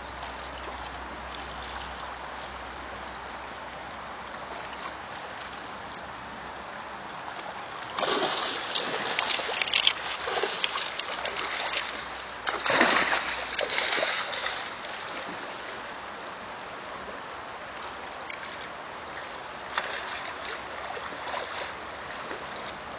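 Shallow stream running over gravel, with salmon thrashing and splashing in the shallows: two loud spells of splashing around the middle and a shorter, softer one later.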